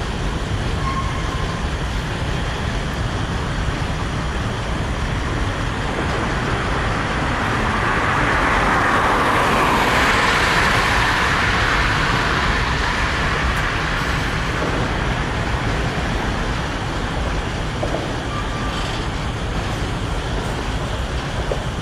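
Freight train's covered hopper cars rolling past, a steady rumble and clatter of steel wheels on rail that swells to a louder hiss in the middle and then settles. Two brief faint squeals come about a second in and near the end.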